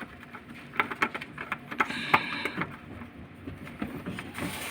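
Scattered clicks and knocks of hand tools and bolts on metal engine parts, with a short scraping rattle about two seconds in.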